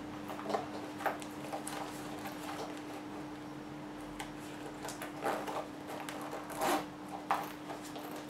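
Quiet scraping, rustling and small taps of hands handling a patent-leather clutch and sliding plastic cards into a slot, with the loudest scrape about six and a half seconds in. A faint steady hum runs underneath.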